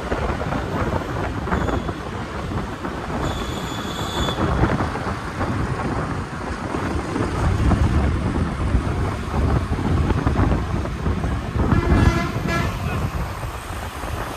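City road traffic heard while moving along the street: a steady rumble of engines and tyres, with a short high horn toot about three seconds in and another vehicle horn sounding near the end.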